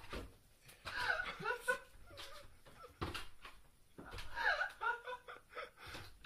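Off-camera people laughing in two bursts, with a few sharp knocks in between.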